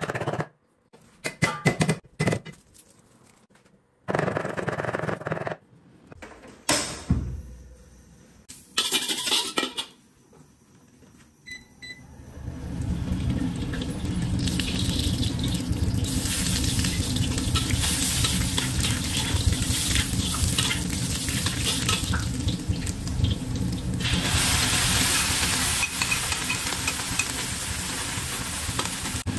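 A cleaver chopping and scraping perilla leaves on a wooden chopping block, a few separate knocks and clatters. From about twelve seconds in, a steady sizzle of oil frying in a wok, growing brighter about halfway through and again near the end.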